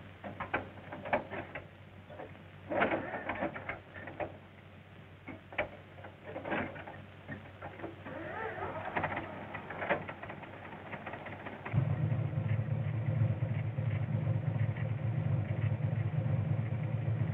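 Old open touring car being hand-cranked because its battery is flat: a run of irregular knocks and rattles from the crank and engine, then about twelve seconds in the engine catches and settles into a steady low running note.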